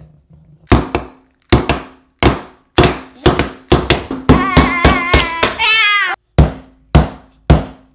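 About twenty sharp, hard knocks as hand tools strike the hard plastic shell of a Sphero 2.0 robot ball, some in quick runs and some spaced out. A child squeals for about two seconds in the middle.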